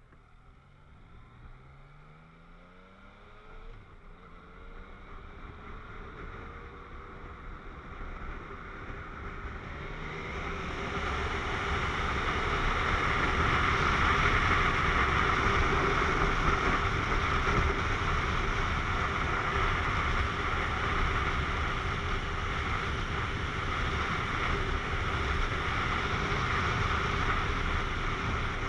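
Yamaha MT-09 three-cylinder motorcycle engine pulling away and accelerating, its note rising in pitch several times as it climbs through the gears. Wind rush on the helmet-mounted camera grows with speed and then holds steady and loud under the engine at cruising speed.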